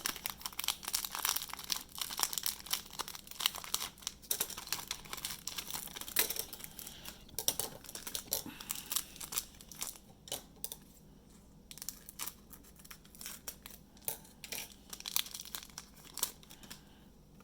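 Plastic wrapper of a trading-card pack crinkling and tearing as it is opened and the cards are pulled out. The crinkling is dense for about the first ten seconds, then thins out to scattered crackles.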